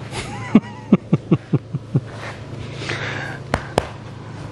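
A dog playing tug-of-war with a blanket: a quick run of about seven short grunts that fall in pitch, a rustle of fabric, then two sharp clicks near the end.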